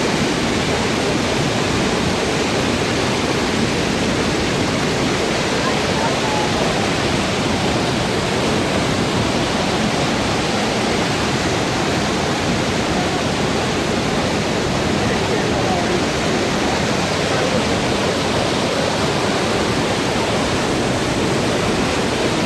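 Loud, steady rushing of a mountain torrent pouring over boulders in whitewater.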